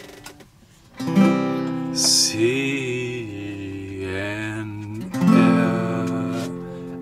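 Acoustic guitar strummed, with chords struck about a second in and again about five seconds in and left to ring. Between them a voice briefly sings along.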